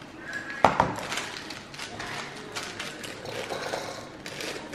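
Two sharp knocks a little over half a second in, the loudest sounds, then rustling and light tapping as wrapped green tea bags are handled and dropped into a ceramic canister.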